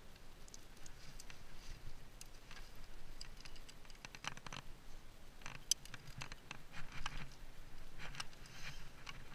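Irregular light scrapes and small clicks of a rock climber moving on the rock: hands and rock shoes brushing and tapping the rock face, with climbing gear clinking now and then.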